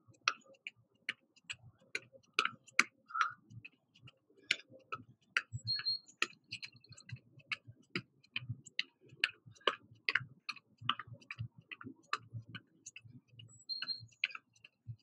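Light, quick footfalls of sneakers on a workout mat from jogging in place with butt kicks: a steady run of sharp taps, about two to three a second, each with a soft thud.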